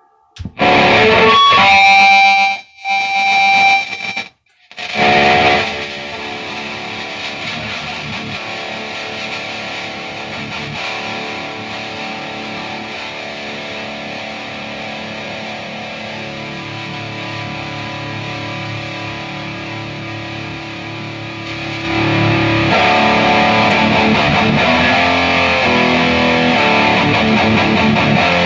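High-gain distorted electric guitar played through a Peavey 6505MH amp head and Mesa 2×12 cabinet, boosted by a TS9DX Turbo Tube Screamer: a few loud chords at first, each cut off sharply by the noise gate, then quieter held, ringing notes, and loud, changing riffs for the last several seconds.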